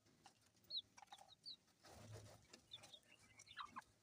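Faint chickens: short high peeps from chicks repeated throughout, with a few lower clucks near the end and scattered light ticks.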